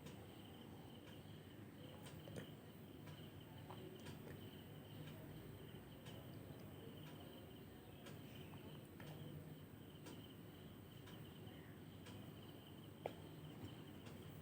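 Near silence with a faint, steady high chirring like crickets, and a few soft ticks.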